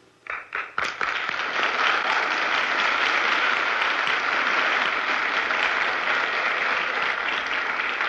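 Studio audience applauding: a few separate claps at first, swelling within about a second into full, steady applause.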